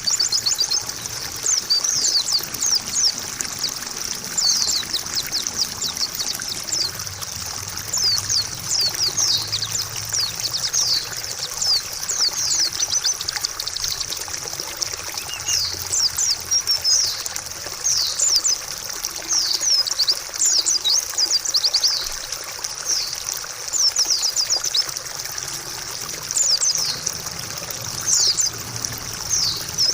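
White-eye (pleci) song: rapid, high-pitched twittering phrases that come in clusters with short gaps between them. It plays over steadily trickling water, as a recording used to coax a silent caged pleci into singing.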